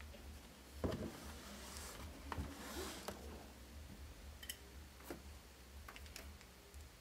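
Faint handling noise of a laptop LCD panel and a small screwdriver: a soft knock about a second in, then a few scattered light clicks and taps, over a low steady hum.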